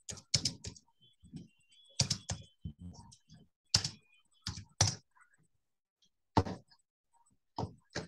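Typing on a computer keyboard: short, irregular runs of a few keystrokes with pauses between them.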